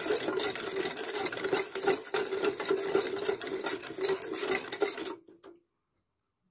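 A flat utensil stirring cold milk and sugar in a steel pot, scraping and clicking against the metal as the sugar is mixed in. It stops a little after five seconds in.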